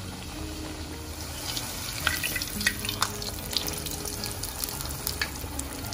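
Kuttu (buckwheat-flour) puri frying in hot fat, a steady sizzle with sharp crackles and pops that grow busier about one and a half seconds in.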